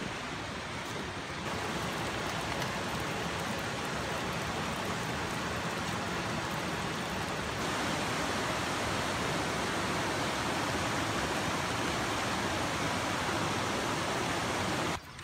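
River water rushing steadily over a rocky bed and a small stepped weir: a constant hiss of white water that grows a little louder about eight seconds in.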